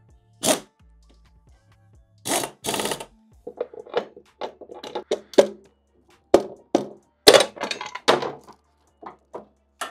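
Hand tools and small metal parts knocking, clicking and scraping during work on a scooter variator while its rollers are changed. A single sharp click comes first, then two short scrapes, then a run of irregular knocks and clatters, with background music underneath.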